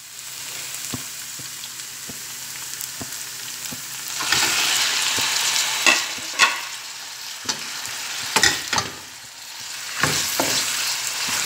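Raw chicken strips going into hot oil and sautéed onions in a stainless steel pan: a steady sizzle that grows much louder about four seconds in as the chicken hits the oil. A wooden spatula stirs and knocks against the pan a few times.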